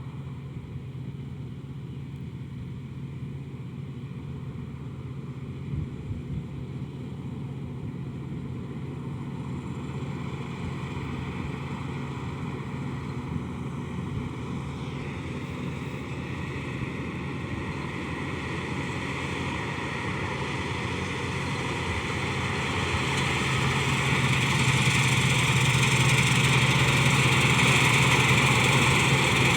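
Kartar DLX combine harvester's diesel engine running steadily. It grows louder and more hissing about three quarters of the way through.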